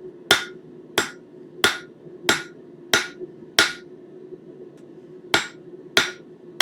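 Hammer blows on hot 1/4-inch square steel stock on an anvil: angled, glancing strikes drawing out a taper, each ringing briefly. About one and a half blows a second, six in a row, a short pause, then two more.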